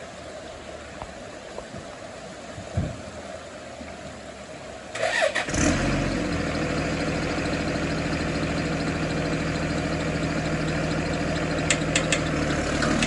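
An engine starts about five seconds in, catching after a short crank, then idles steadily.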